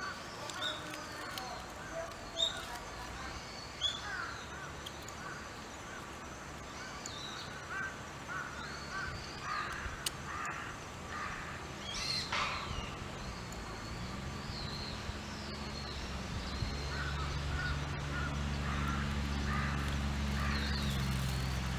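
Crows cawing again and again, with smaller birds chirping alongside. In the last third a steady low hum, like a motor, grows louder underneath.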